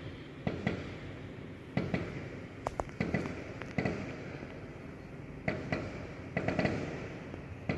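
Fireworks going off: about a dozen sharp bangs at irregular gaps, some in quick pairs and clusters, each followed by a short echoing tail.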